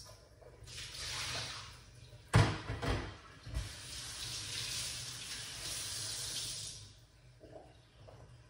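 Kitchen tap running into a sink in two spells, a short one and then a longer one of about three seconds. Between them come a few sharp clunks of things knocked against the sink.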